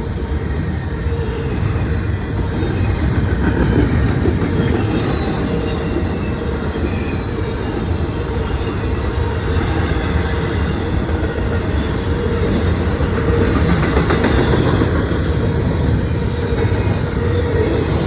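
Norfolk Southern intermodal freight train rolling past, with a steady noise of wheels running on the rails.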